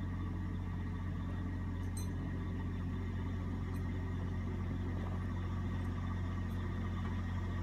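CAT D8T crawler dozer's diesel engine idling steadily, a constant low hum.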